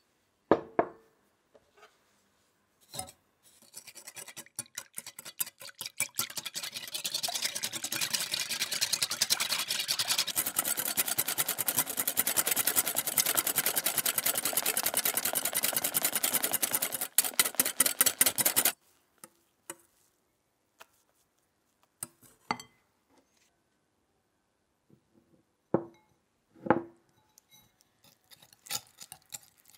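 Wire whisk beating whipping cream and sugar in a glass mixing bowl: a fast, steady run of clinks and swishes against the glass from about four seconds in that stops suddenly after about eighteen seconds. A few single knocks follow, then lighter ticking of a whisk working cream cheese in a small glass bowl near the end.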